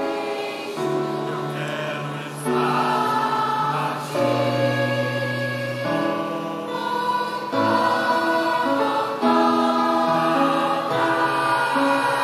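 A women's choir singing in harmony, holding long chords that change every second or two.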